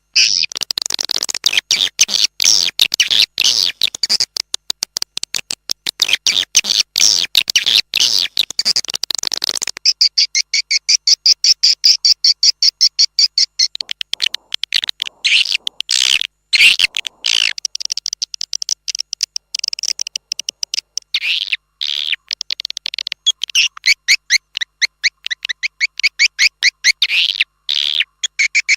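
Swiftlet lure call: a loud recording of swiftlet calls in dense, rapid trains of short twittering chirps, the kind played outside a swiftlet house to draw the birds in. A hissy noise layer sits under the chirps and stops about ten seconds in.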